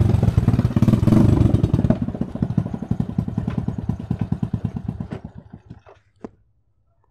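Small motorcycle engine pulling up, then idling with an even putter that slows and dies away about six seconds in. A single sharp click follows just after.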